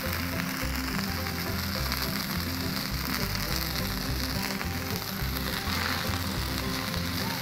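Burger patties and crinkle-cut fries frying in canola oil on a Blackstone flat-top griddle, a steady sizzle, under background music with a rhythmic bass line.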